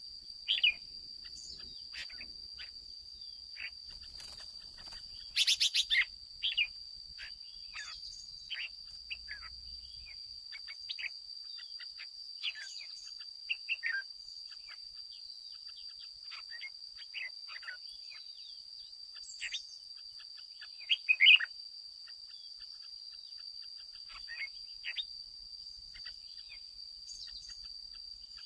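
Red-whiskered bulbul singing and calling in short chirps and warbled phrases, with louder bursts about five seconds in and again past twenty seconds. A steady high-pitched whine runs underneath.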